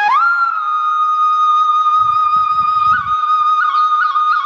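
Background music: a solo flute sliding up into one long held note, with quick ornamental turns near the end.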